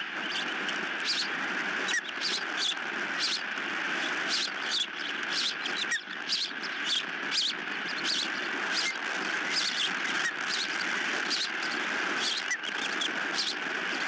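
Wind rushing over the microphone, with a steady stream of short, high chirping calls from ospreys at the nest, a couple every second.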